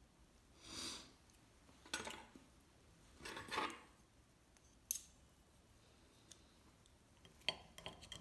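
Tableware handling: three short, soft swishes in the first four seconds, one sharp click about five seconds in, then knife and fork clinking against the plate near the end.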